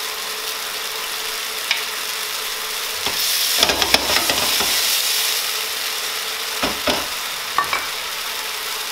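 Mushrooms and garlic in a port wine and Worcestershire sauce sizzling steadily in a frying pan on a gas burner. About three seconds in, a wooden spoon stirs and scrapes through the pan for a couple of seconds, and a few light knocks follow.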